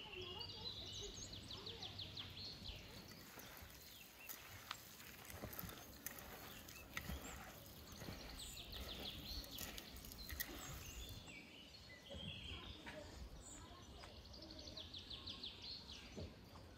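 Outdoor ambience with a songbird singing a fast high trill three times, along with other short chirps. Scattered sharp clicks and knocks sound through it.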